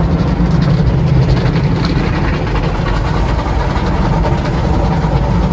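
Automatic car wash heard from inside the car: water and soap spraying onto the windshield over the wash machinery running, a loud, steady rush with a heavy low rumble.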